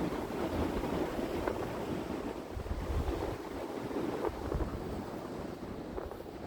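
Strong wind buffeting the microphone in uneven low gusts, over a steady wash of sea waves on a rocky shore.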